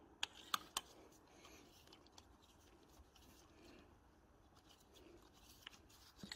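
Faint clicks and light scraping from a hand-turned injector seat cutter being twisted in a diesel injector bore, cutting the copper-washer seat clean. A few soft clicks come shortly after the start and two more near the end.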